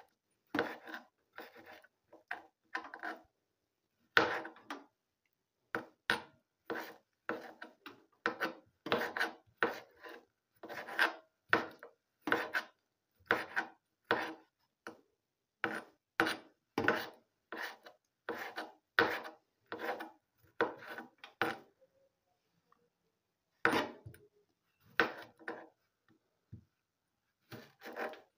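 Knife slicing and dicing tomatoes on a cutting board, a steady run of short strokes about two a second, with a pause of about two seconds late on.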